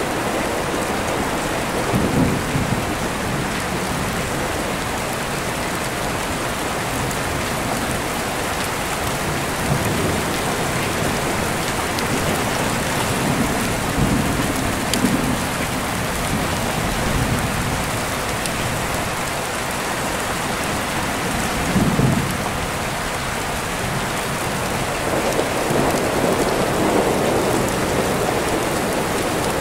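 Steady rain with deep rolling thunder rumbling several times over it.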